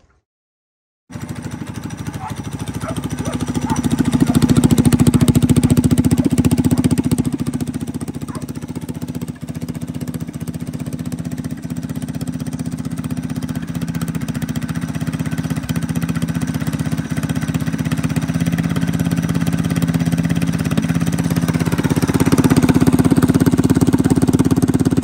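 Mini bike's small single-cylinder engine running unmuffled just after a cold start. The engine cuts in abruptly about a second in, swells over the next few seconds, settles back, and climbs again near the end.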